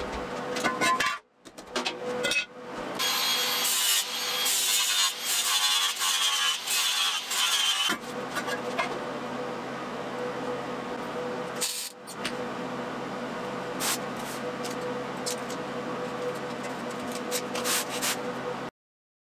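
Angle grinder working on steel, a rough scraping grind in passes with short breaks, steadier and quieter in the second half, cutting off abruptly near the end.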